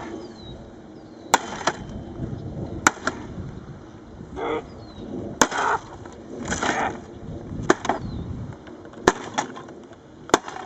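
Sledgehammer striking a spectrophotometer's casing, about six heavy blows spaced roughly two seconds apart, breaking a widening hole in the instrument.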